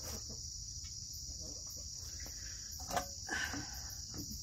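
A steady, high-pitched chorus of crickets, with a couple of light knocks about three seconds in.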